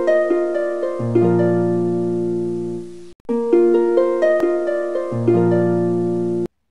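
Instrumental music of plucked-string arpeggios with a low held bass: a short phrase of notes entering one after another, cut off abruptly about three seconds in, started again and cut off once more near the end.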